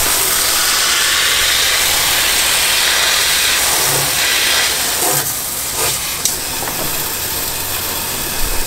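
Garden hose pistol-grip nozzle spraying a steady, hissing jet of water, washing out freshly cleaned blue claw crabs and splashing on the cleaning table.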